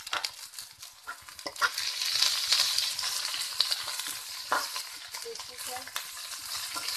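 Shredded vegetables sizzling in hot oil in a kadhai while a metal spatula stirs and tosses them, with sharp clicks of the spatula against the pan. The sizzle swells about two seconds in.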